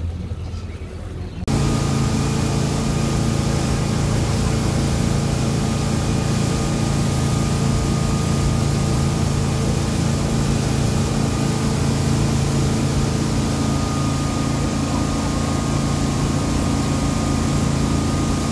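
Jeanneau NC11 powerboat running fast under engine power: a steady engine drone with the rush of wake water and wind. About a second and a half in, the sound jumps abruptly from a quieter low rumble to this louder run, which holds steady.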